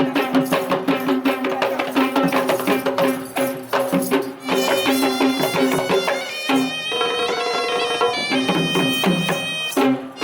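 Traditional music with a shrill wind instrument over a steady drone. Rapid drum strokes are thick for the first few seconds, then the melody stands out with changing notes.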